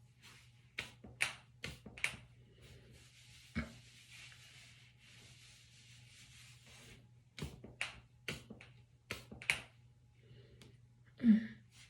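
Joints cracking during a chiropractic shoulder adjustment: sharp pops in two quick runs with a single one between them, then a louder, deeper thud near the end.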